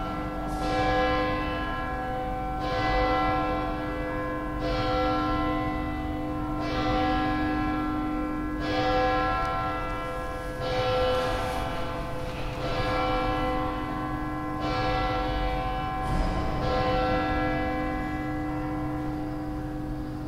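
A church bell tolling, one stroke about every two seconds, each stroke ringing on until the next, heard from inside the cathedral.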